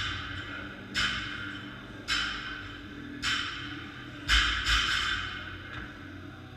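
Sharp knocks from the gym's pull-up rig as athletes swing through toes-to-bar, about one a second, each ringing briefly. There is a heavier double knock about four seconds in.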